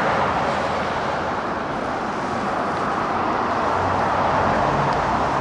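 Steady roadside traffic noise, an even rush from passing vehicles, with a low engine hum joining about four seconds in.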